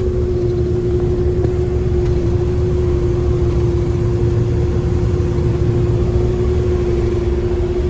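Snowmobile trail groomer's engine running at a steady speed: a constant low rumble with a single steady hum above it that does not rise or fall.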